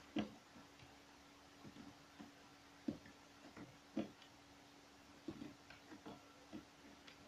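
Irregular short clicks of a computer mouse and keyboard, about a dozen, as pieces of a shape are selected and deleted, over a faint steady low hum.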